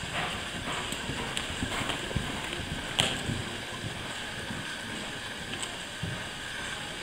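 Horse cantering on the sand footing of an indoor riding arena, dull hoofbeats thudding unevenly, with a sharp knock about three seconds in.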